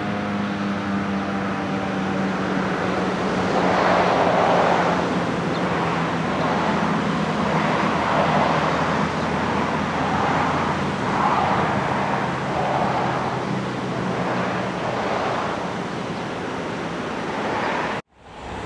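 Federal Signal 2001-130 electromechanical warning siren winding down, its last tone falling in pitch and fading out over the first few seconds. Then steady road traffic noise with swells as cars pass. The sound drops out abruptly for a moment near the end.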